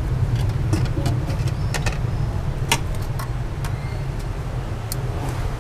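Steady low rumble of street traffic, with a few light, sharp clinks of utensils on top.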